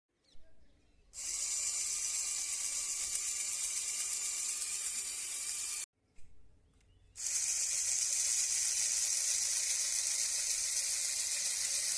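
Small DC gear motor running with a steady high whine, in two runs of about five seconds each with a short break between them.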